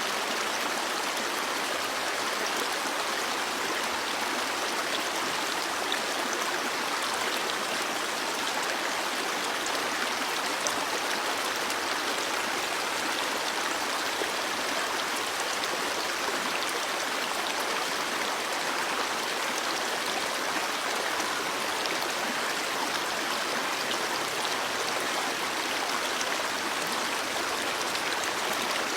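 Stream water flowing over rocks, a steady rushing and babbling.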